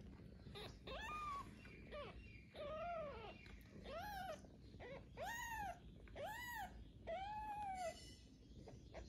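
Young kittens mewing over and over: high, thin cries that each rise and fall in pitch, about one a second.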